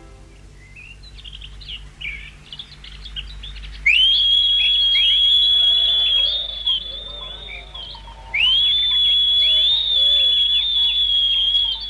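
Birds chirping, then two long, steady high whistles of about two and a half seconds each, with a slight waver: a goatherd whistling to his flock.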